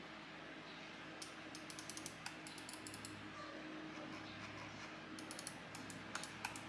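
Buttons of a white Logitech wireless gaming mouse being clicked rapidly by a finger, in two quick runs: one starting about a second in and another near the end. A faint steady hum lies underneath.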